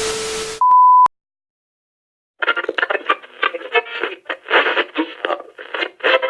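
Static hiss with a steady hum-like tone, cut off about half a second in by a short, loud, pure beep. After a second or so of silence, talk comes in with the thin, narrow sound of a radio or phone line.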